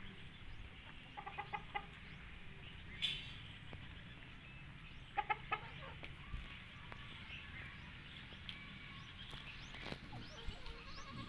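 Chickens clucking in short quick runs, about a second in and again about five seconds in, with a sharp click about three seconds in.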